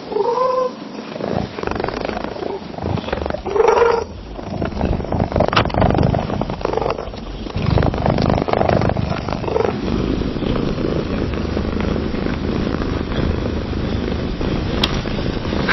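Domestic cat purring in a rough, pulsing rhythm, with two short pitched calls about four seconds apart near the start; about ten seconds in, a second, steadier purr takes over.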